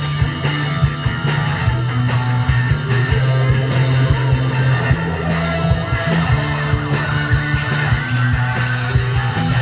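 Live rock band playing an instrumental passage: electric guitars over a steady bass line and drums.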